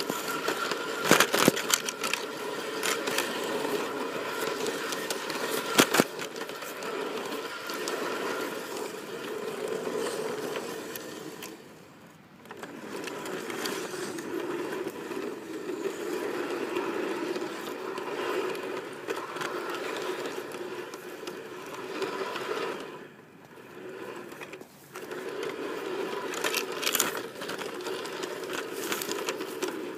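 G scale model train running along garden track: a steady whine from the locomotive's electric motor and gearing, with the wheels clicking and scraping on the rails. A few sharp clicks come in the first seconds. The sound drops away briefly about twelve seconds in and again between twenty-three and twenty-five seconds.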